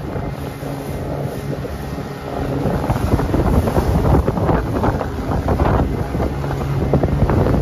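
Small motorboat's engine running at a steady pitch under heavy wind buffeting on the microphone, louder from about two seconds in.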